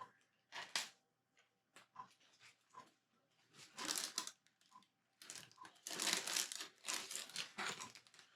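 A plastic bag of Lego pieces being rummaged through: a few separate clicks of bricks at first, then steady crinkling of the plastic bag with bricks rattling, from about five seconds in.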